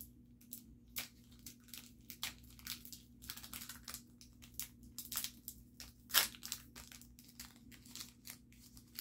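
Trading card pack wrapper crinkling and tearing as it is opened by hand: irregular crackles, with the loudest rip about six seconds in.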